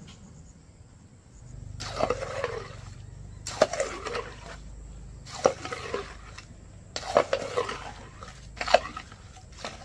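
Repeated wet slopping splashes, each starting with a sharp knock or scrape, about one every one and a half to two seconds, over a low steady hum.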